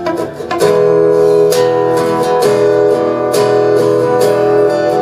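Live instrumental passage of a folk-rock song: two acoustic guitars strumming and picking chords in a steady rhythm over sustained keyboard notes. A brief dip near the start, then the full band plays on evenly.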